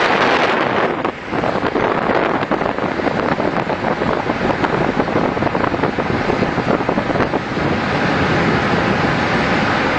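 Strong wind buffeting the microphone over the rush of the sea, a steady loud roar that dips briefly about a second in.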